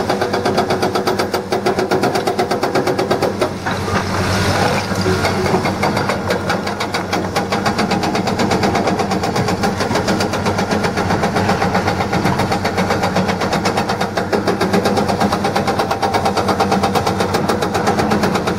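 Hydraulic rock breaker on a John Deere 200D LC excavator hammering rock in a rapid, even stream of blows, about ten a second, over the steady running of the excavators' diesel engines.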